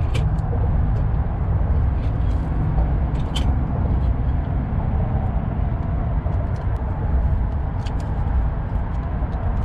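Steady low rumble in the background, with a few light sharp clicks scattered through it as the sensor-wire connector is worked loose from the starter motor.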